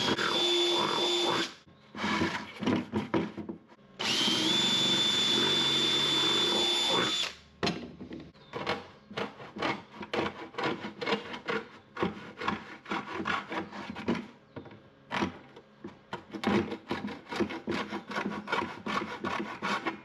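Cordless drill boring through the rim of a plastic 5-gallon bucket in two runs of a few seconds, each spinning up to a steady whine. After that, a hacksaw cuts through the bucket's plastic rim with quick back-and-forth strokes.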